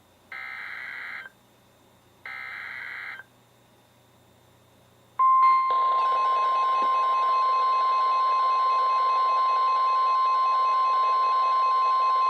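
NOAA Weather Radio SAME alert header: the last two of three buzzy one-second digital data bursts, about a second apart. After about two seconds of quiet, the steady 1050 Hz weather-radio warning alarm tone comes on over radio static, signalling a new warning about to be read.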